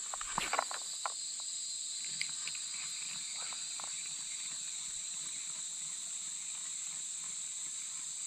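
Steady high-pitched drone of insects, with a few light clicks and knocks in the first second or so, then once more a couple of seconds in, from casting the spinning rod and handling its reel.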